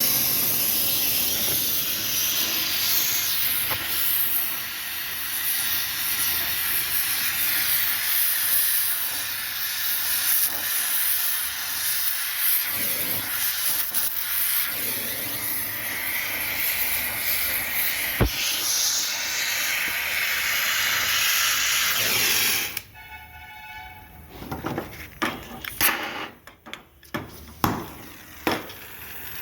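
Gas welding torch hissing steadily while lead battery plates are welded together. About 23 seconds in the hiss cuts off, and a few scattered knocks and clicks follow.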